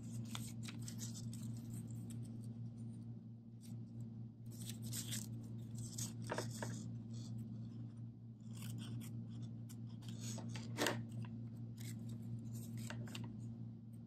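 Hand scissors cutting through folded paper: a series of short snips with paper rustling between them, the sharpest about eleven seconds in, over a steady low hum.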